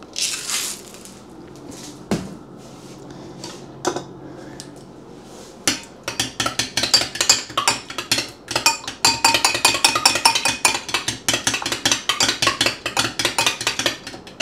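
Eggs being beaten in a bowl with salt: a few single clinks, then from about six seconds in rapid, even clinking of about five strokes a second. Soft background music underneath.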